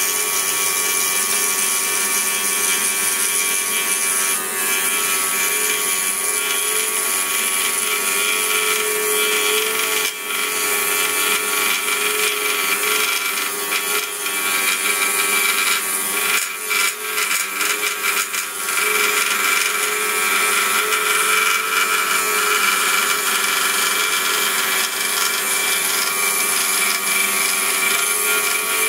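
Pégas 21-inch precision scroll saw running at a steady pitch, its blade cutting through a double layer of 3/8-inch wood for an inlay, with a few brief dips in level about halfway through.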